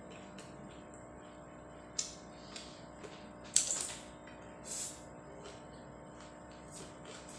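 Close-up eating sounds of a person eating rice and fish curry by hand: fingers working the rice, then a handful taken into the mouth with a few wet mouth clicks and smacks. The loudest smack comes about three and a half seconds in.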